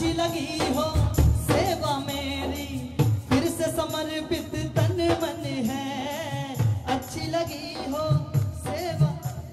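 A male singer sings a Hindi devotional bhajan live through a microphone and PA, with drums and other instruments accompanying.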